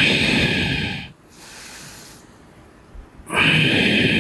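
A man's heavy breathing close to a headset microphone during an exertive mobility drill: two loud, forceful breaths with a quieter breath between them.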